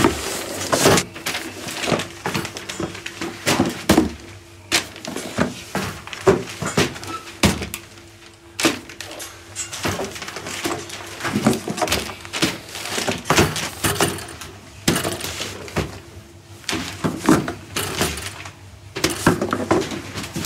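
Paper-wrapped cardboard parcels being handled: irregular knocks and thuds as boxes are lifted, stacked and set down on a parcel scale.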